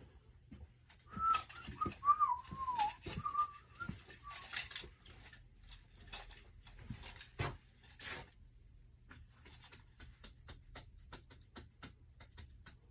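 A man whistling a few wavering notes while rummaging through garage clutter, with clatters and knocks of objects being moved. Near the end comes a run of light, quick clicks, about three a second.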